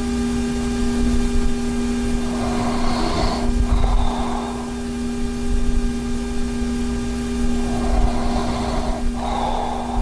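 A sleeping man breathing slowly and audibly through a Zquiet anti-snoring mouthpiece. Two breaths about six seconds apart, each an in-breath then an out-breath with a short pause between, over a steady hum.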